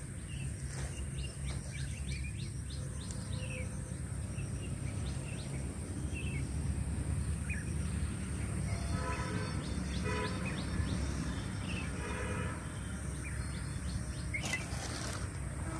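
Birds chirping over a steady low rumble of outdoor ambience, with a thin steady high tone throughout. Around the middle come three short pitched calls, each a few notes of several tones at once.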